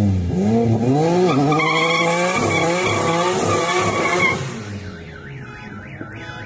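Single-turbo VQ35HR V6 in a Nissan 240SX revving in repeated rises and falls, with a wavering tyre squeal over it from about a second and a half in. Near five seconds the engine drops away and a fast, regularly warbling tone takes over.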